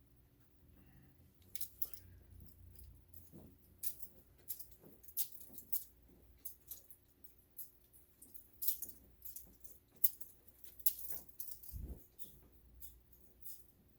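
Irregular light clicks and small metallic rattles, as of small hard objects being handled and set down, with one dull thump near the end.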